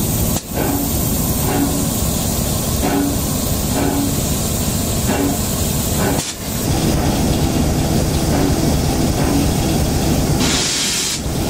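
Steam locomotive in steam, hissing, with a faint beat about once a second underneath. A louder burst of steam hiss comes near the end. The sound cuts out briefly twice.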